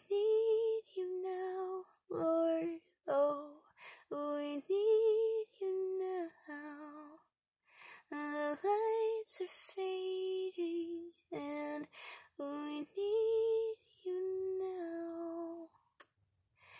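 A woman singing a wordless melody unaccompanied, holding long notes with a slight vibrato in short phrases separated by breaths, with a pause about seven seconds in.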